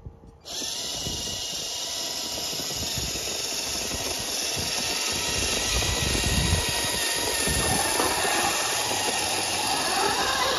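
Tamiya Clodbuster RC truck driving under power: its twin electric motors and gearboxes whine steadily over a loud hiss, with the whine rising near the end.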